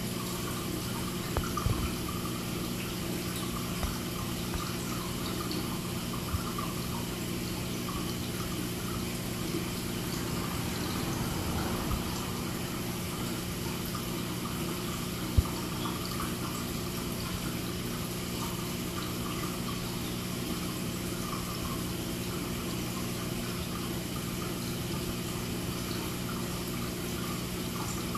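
Reef aquarium's circulating water trickling and splashing steadily over a constant low hum, with a few short clicks, the sharpest about fifteen seconds in.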